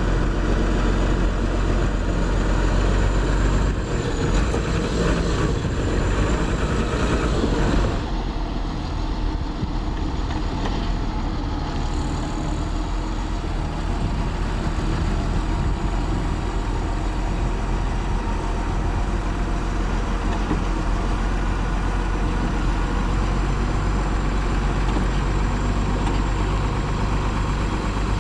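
Heavy diesel engines of construction machinery running steadily. The sound changes abruptly about eight seconds in, then runs on evenly.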